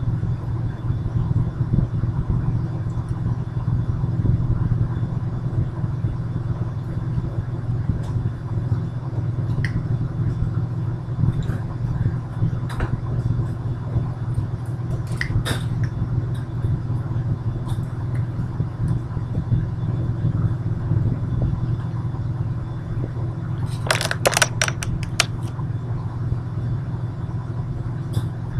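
Steady low hum with scattered light clicks and knocks, and a quick run of about eight taps a few seconds before the end.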